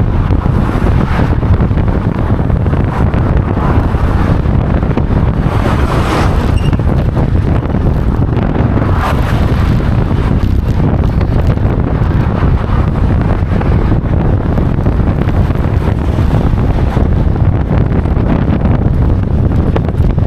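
Strong wind buffeting the microphone: a loud, steady low rumble, with stronger gusts about six and nine seconds in.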